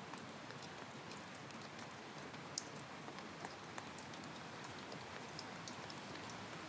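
Steady rain falling, with scattered separate drops ticking over the hiss.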